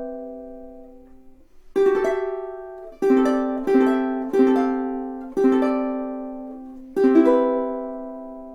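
All-solid koa jumbo tenor ukulele strumming chords: six strums, each left to ring and fade. The last one rings out near the end.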